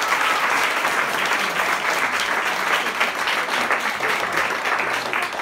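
Audience applauding steadily, a dense patter of many hands clapping, just after a sung performance ends.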